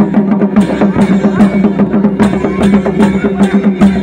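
Festival drumming: a fast, steady drumbeat with sharp clashes cutting through at regular intervals, going on without a break.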